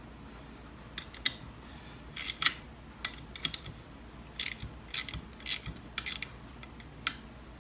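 Ratcheting wrench clicking in short, irregular bursts as bolts on a strut-top spacer are snugged down by hand.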